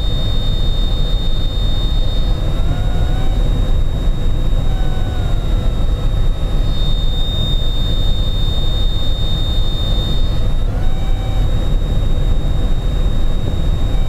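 Outer tail feather (R5) of a male Anna's hummingbird fluttering in a wind tunnel's airflow, giving a steady high-pitched tone over the rush of the tunnel air. The tone is loud while the neighbouring tail feather R4 sits behind R5 and amplifies it. It drops about two and a half seconds in as R4 is removed, comes back strong near seven seconds when R4 is replaced, and weakens again a little after ten seconds.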